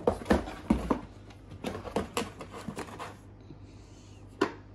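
Cardboard box and its packing inserts being handled: a quick series of knocks and scrapes, quieter for a moment, then one more knock near the end.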